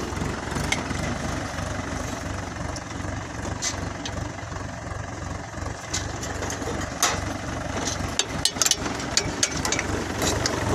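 Tractor engine running steadily as it pulls a seed drill through the soil, with a few sharp clicks and knocks in the second half.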